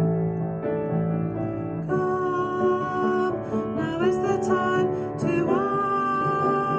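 Worship song with piano accompaniment and a singing voice, held notes with a few sliding pitch changes.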